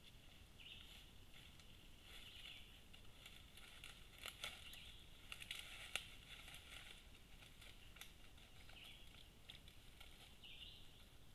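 Near silence with faint rustling and a few sharp snaps of brush, loudest around the middle, as an American black bear moves through grass and undergrowth up a wooded slope.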